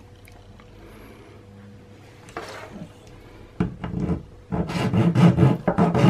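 Flat metal hand file rasping across the edge of a 3D-printed PLA cable clip in quick back-and-forth strokes, about five a second, starting a little past halfway, with a single short scrape before it.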